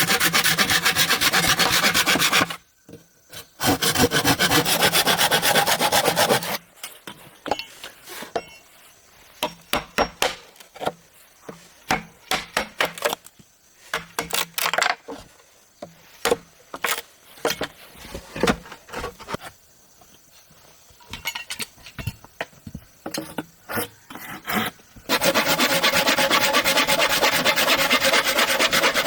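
Hand saw cutting wood in sustained stretches of back-and-forth strokes, twice near the start and again near the end. In between, a long run of scattered wooden knocks and taps.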